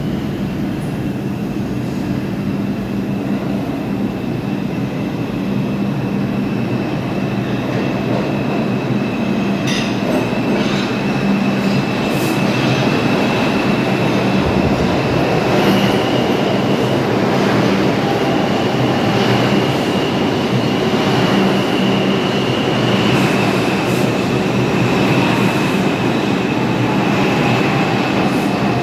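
An R142 subway train pulling into the station with a steady low rumble. A high, steady wheel squeal sets in about ten seconds in, with scattered clicks of the wheels over rail joints. Near the end a lower tone slowly falls in pitch.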